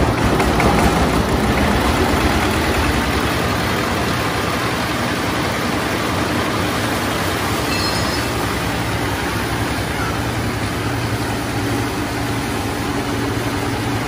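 Small single-cylinder diesel engine running steadily with a fast, even firing beat, driving a rice paddy thresher as bundles of stalks are fed into its spinning drum.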